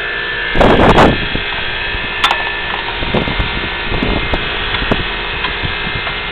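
Steady electrical hum of several fixed tones, with a brief loud burst of rustling and knocking about half a second in, then scattered light taps and clicks.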